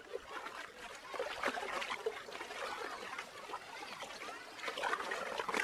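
Drinking water poured from a bowl through a cloth filter, trickling and splashing into the basin below as it is strained.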